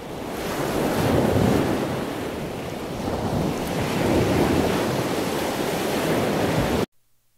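Ocean surf washing onto a sandy beach, swelling about a second in and again around four seconds in, then cutting off suddenly near the end.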